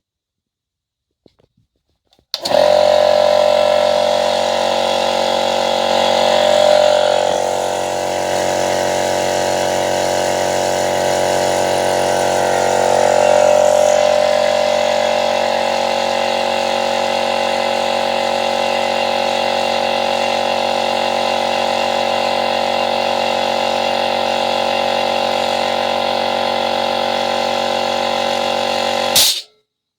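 MIOL piston air compressor, its seized connecting rod repaired, starting up and running steadily with a smooth mechanical hum. The hum swells slightly twice. Near the end it stops abruptly with a short burst of sound.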